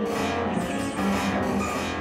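Cello and electronic keyboard playing a dense, continuous passage of contemporary chamber music, heavy in the low range, with a rock-like band sound.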